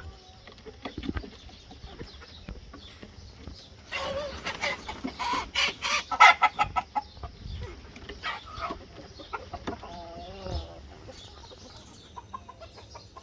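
Chickens, a rooster and hens, clucking: a quick run of clucks starting about four seconds in and lasting about three seconds, then a short wavering call near ten seconds.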